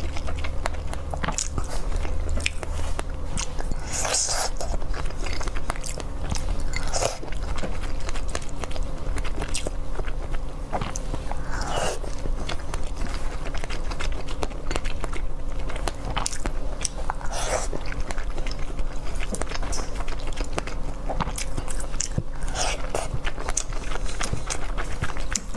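Close-miked mouth sounds of a person chewing wontons in chili-oil sauce: wet chewing with many small clicks and smacks, and a few brief louder wet sounds spread through.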